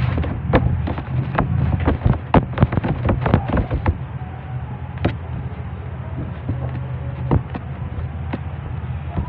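Hands pressing, slapping and rolling a lump of dough on a metal worktable: a quick run of knocks and slaps in the first four seconds, then a few single knocks as pieces are pulled off the log. A steady low hum runs underneath.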